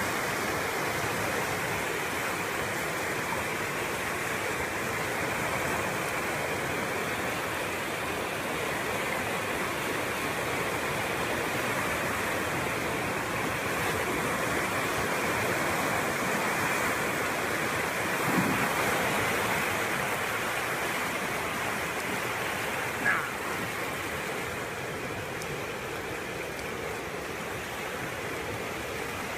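Muddy flash-flood water rushing across open ground with a steady, full rushing noise. Two brief louder sounds break through about two-thirds of the way in.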